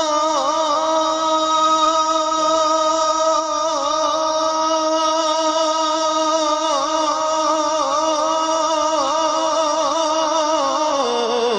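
A man singing a naat, drawing out one long wordless held note with a wavering vibrato; the pitch dips near the end.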